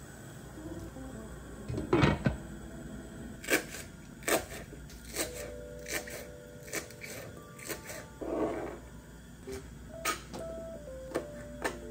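Kitchen knife chopping green onion and then a hot pepper on a plastic cutting board, single sharp chops about one a second. A louder thud comes about two seconds in, and soft background music plays under it.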